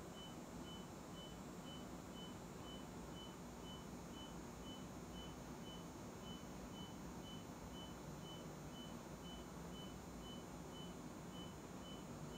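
Faint steady beeping, about two short high beeps a second, from the Elekta Compact linear accelerator during a radiotherapy treatment, over a low steady machine hum.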